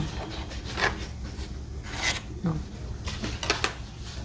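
A few short, irregular rubbing and scraping sounds of a paper scratch-off lottery ticket being handled on a tabletop.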